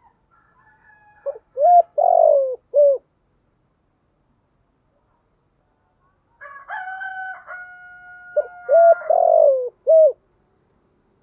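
Spotted dove cooing, two phrases: each starts with a few faint higher notes and ends in loud low coos, a couple of short ones, then one drawn-out coo and a short final one.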